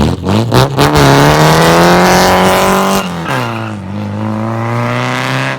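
Car with a welded rear differential launching hard from a stop: a choppy start in the first second, then the engine pulls up steadily through the gear. About three seconds in the revs drop on an upshift and begin climbing again in the next gear.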